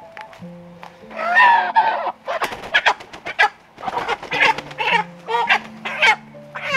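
A domestic chicken squawking in a rapid series of loud, harsh calls as it is held and turned upside down by hand, starting about a second in. Squawking like this is a sign of stress in the bird.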